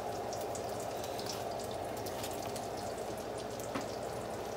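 Fish patties pan-frying in oil: a steady sizzle with scattered small crackles.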